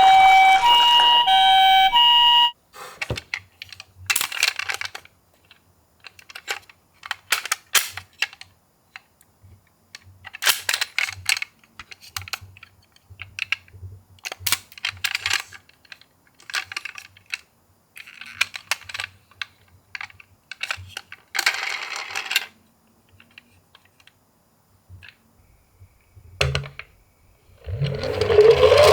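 Toy ambulance minicar's electronic two-tone siren alternating between two pitches, which cuts off suddenly about two and a half seconds in. Then scattered small clicks and plastic rattles as the toy is handled, and near the end a loud rising whine starts.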